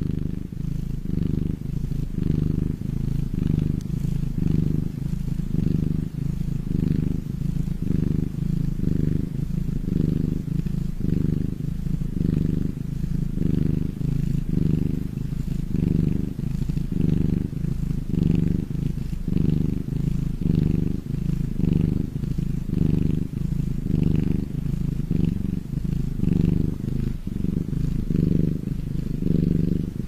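A ginger kitten purring steadily as it dozes off, the low purr swelling and fading with each breath, roughly once a second.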